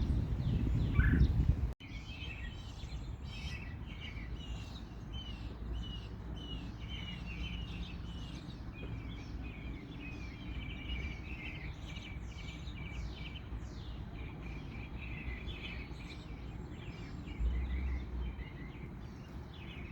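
Many small birds chirping and twittering in quick, overlapping calls over a steady low background rumble. A louder low rumble ends abruptly about two seconds in, just before the chirping begins.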